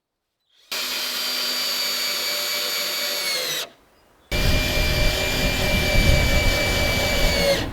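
Electric power tool motor running in two bursts of about three seconds each, its whine dropping in pitch as it spins down after each; the second burst has a heavier low rumble, as if working under load.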